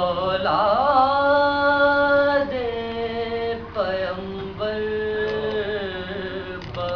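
Solo male voice reciting an Urdu Salam, a Muharram mourning elegy, sung in long held melodic notes with wavering ornaments, a few phrases in a row.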